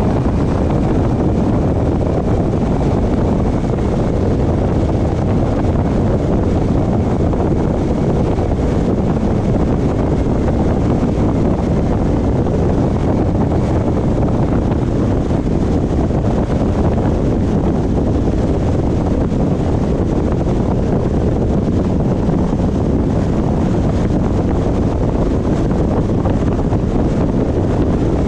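Loud, steady wind and road noise from a moving car, with wind blowing on the microphone.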